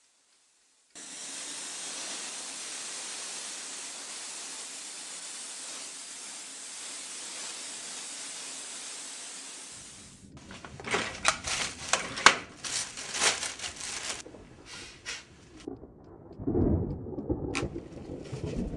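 A steady hiss starts about a second in and cuts off suddenly after about nine seconds. It is followed by a run of sharp, irregular cracks and a low rumble near the end, the pattern of a storm-like sound effect.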